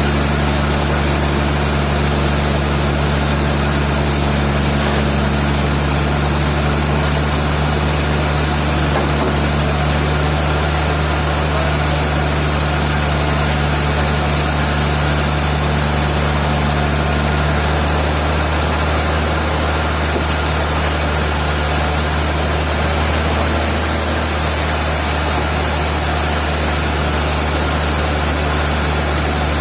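Heavy sawmill machinery running steadily: a constant low engine hum under an even hiss, with no cutting strokes, knocks or changes in speed.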